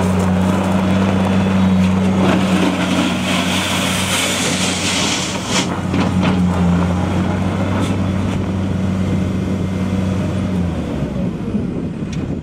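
New Holland LS170 skid steer loader's turbocharged diesel engine running at a steady speed. A hiss rises over it for a couple of seconds in the middle, with a few knocks after it, and the steady engine note breaks off near the end.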